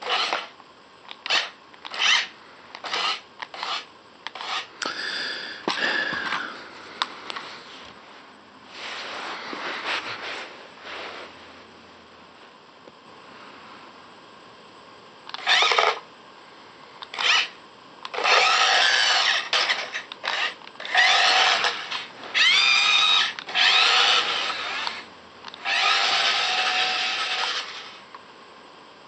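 Toy remote-control car's small electric drive motor and plastic gears whirring in short stop-start bursts, then in longer runs whose whine rises and falls in pitch.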